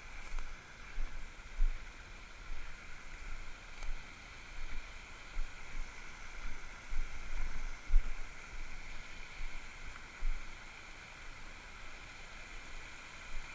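A small spring waterfall splashing and running in a steady hiss, with irregular low bumps on the microphone throughout.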